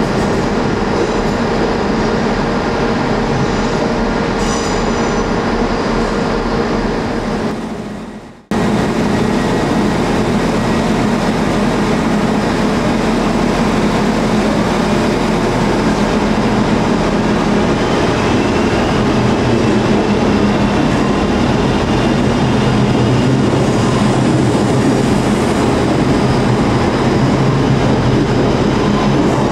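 Electric trains moving through platforms under a station roof. A departing train's steady rumble fades away about eight seconds in. Another train's rumble then starts straight away and holds steady, with a faint rising whine partway through.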